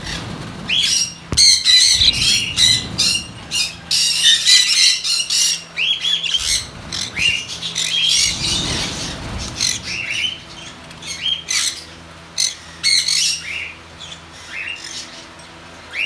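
Hagoromo budgerigars squawking and chirping in quick, short calls. About halfway through comes a burst of wing flapping as one bird flutters in the cage.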